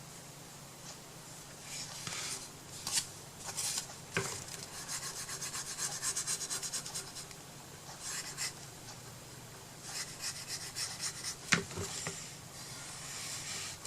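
Quick back-and-forth rubbing strokes on wood, in several bursts of about four strokes a second, as the crafter works the surface of the small wooden box.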